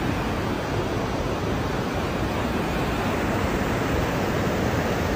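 A river in flood, swollen and fast, rushing through the arches of a stone bridge: a steady, even noise of churning water with no break or change.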